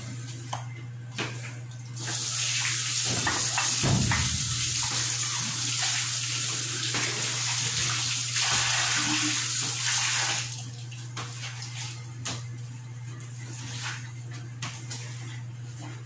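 Tap water running into a sink while items are washed by hand. The water starts about two seconds in and stops after about ten seconds, and light knocks and clicks of things being handled come before and after it.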